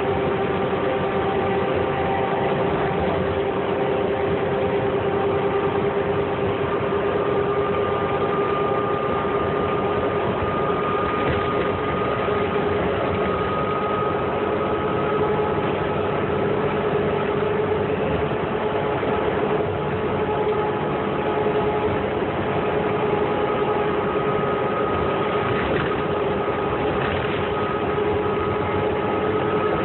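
Interior sound of a 2008 New Flyer C40LFR transit bus cruising at freeway speed: its Cummins Westport ISL-G natural-gas engine and Allison transmission running steadily over road noise, with a steady whine that rises slightly in pitch.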